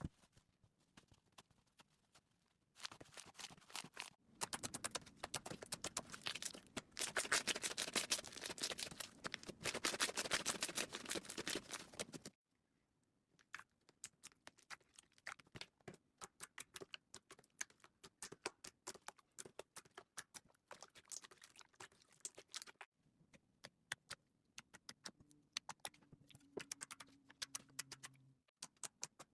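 Slime being squeezed and worked by hand: a dense run of crackling clicks for several seconds, then a short pause and sparser scattered pops and clicks.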